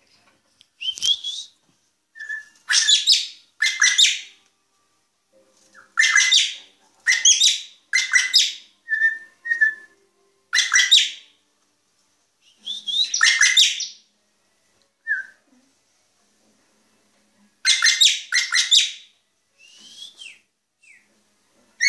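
A drongo singing: loud harsh, scratchy phrases given in clusters with pauses of a few seconds, and a few short clear whistled notes between them.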